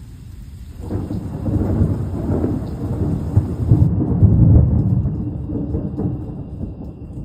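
Thunder rumbling: it starts about a second in, builds to its loudest around the middle and slowly dies away. Rain falls throughout.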